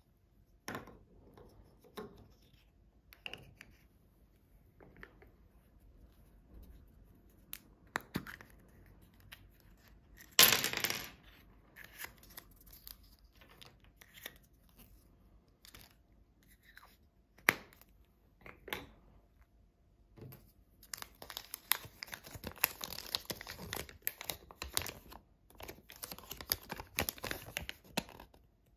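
Hands opening a chocolate surprise egg's yellow plastic toy capsule: scattered small plastic clicks and taps, and a loud rustle lasting about a second, about ten seconds in. From about 21 s there is a long stretch of paper crinkling as the folded instruction leaflet is unfolded.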